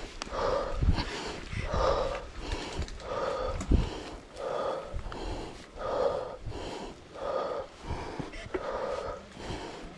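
A mountain biker's heavy, rhythmic breathing while pedalling hard, a strong breath about every second and a half with lighter ones between. Under it the rumble of the bike on a dirt trail, with a few sharp knocks from bumps, the loudest a little under four seconds in.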